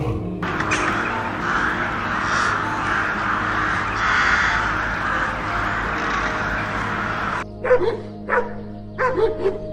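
A large flock of dark birds in a bare tree calling all at once in a dense, continuous chorus that cuts off suddenly after about seven seconds. Then a Siberian husky barks several short times near the end.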